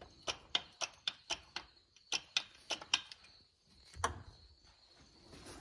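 A run of short, sharp clicks, about four a second, then a duller knock about four seconds in, over a faint steady high whine.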